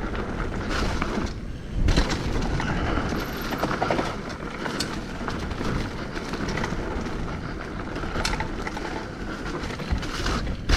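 Hardtail mountain bike rolling along dirt singletrack: steady tyre noise with scattered clatters and knocks from the bike going over bumps, and a heavier knock about two seconds in.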